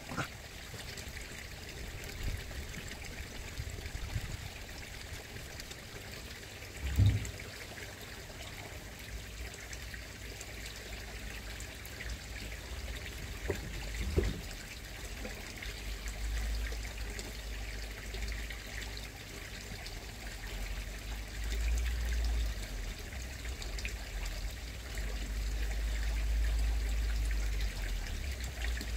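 Steady trickle of water flowing in a koi pond. A low rumble comes and goes and grows louder after about sixteen seconds, and two dull thumps fall about seven and fourteen seconds in, the first the loudest.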